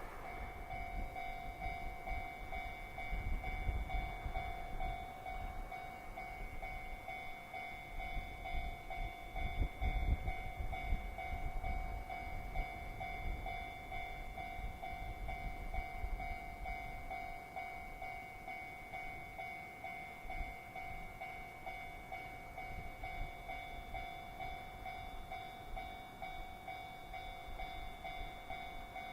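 A freight train passes with a low rumble and rail noise, loudest about ten seconds in and fading after about seventeen seconds. Throughout, a level-crossing warning bell keeps ringing steadily.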